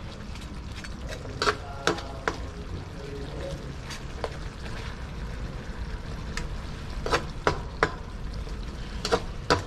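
Sisig sauce with fried tilapia simmering in a pan, a steady bubbling hiss. A cooking utensil taps and clinks against the pan several times: a cluster about a second and a half in, one near four seconds, and more toward the end.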